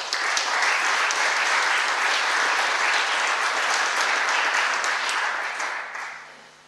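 Audience applauding. The clapping starts all at once, stays even, and dies away about six seconds in.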